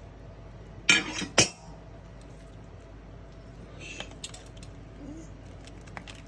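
Two sharp clattering knocks on dishware about a second in, the first the longer, followed by a few faint clinks.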